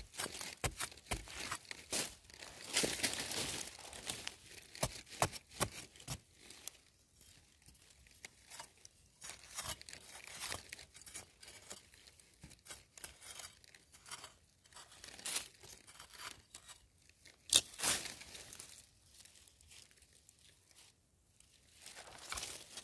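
Small metal trowel scraping and digging into dry, sandy soil in short scratchy strokes, dense at first and sparser later, with a few louder scrapes in the second half.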